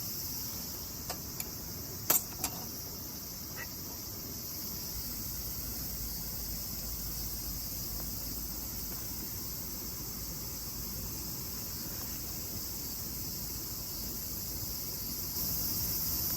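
Insects chirring in a steady high-pitched chorus at a campsite. A few sharp clicks come in the first couple of seconds, the loudest two close together about two seconds in.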